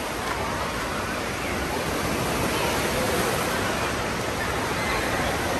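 Water park ambience: a steady rush of falling and splashing water, with faint voices here and there.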